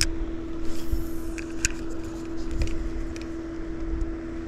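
A small electric motor humming steadily, with wind rumbling on the microphone and a few light clicks and knocks.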